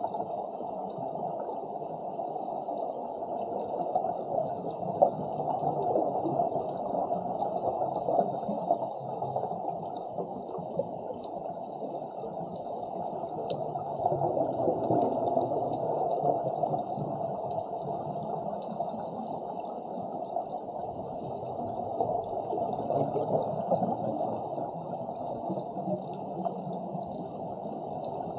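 Muffled underwater ambience picked up by a submerged camera: a steady low rush of water that swells and eases slightly.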